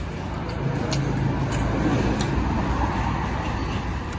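Low, steady rumble of a motor vehicle or road traffic, with an engine hum that swells a little in the first half, and a few faint clicks over it.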